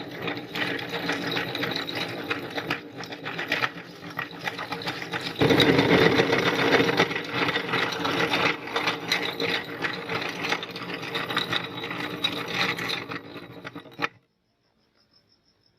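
Electric meat grinder running under load, its motor humming steadily while hard candy crunches and crackles through the auger. It grows louder about five seconds in and stops abruptly near the end.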